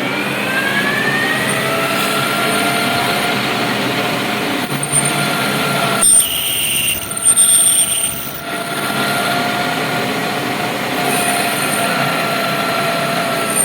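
Metal lathe cutting, the tool and work giving off a steady whine of several tones that slowly shift in pitch, typical of tool chatter. About six seconds in the whine breaks for roughly two seconds with a higher squeal, then the cut resumes.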